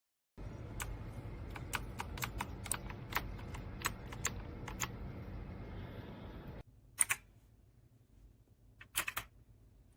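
Keys being pressed on a MageGee mechanical keyboard with clicky blue switches: about a dozen separate key clicks over four seconds, then, after the background hiss drops away suddenly, a few more clicks, a quick cluster of them near the end.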